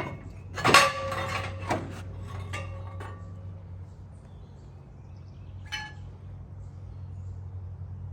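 Metal-on-metal clinks from hand tools and parts: a cluster of sharp clinks about a second in, leaving a ringing note that fades over a couple of seconds, then one more clink near six seconds. A low steady hum underneath.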